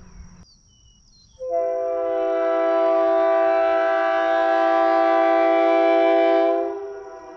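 Leslie RS3K three-chime air horn, a Tampa-built unit, sounding one long blast of about five seconds. Its chord starts about a second and a half in and dies away near the end. The tail of an earlier blast cuts off about half a second in.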